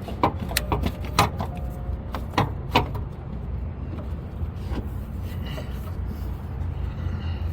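Sharp metallic knocks and clunks, about seven in the first three seconds and then fewer and fainter, over a steady low rumble: the AC compressor being worked down and out through the bottom of the engine bay.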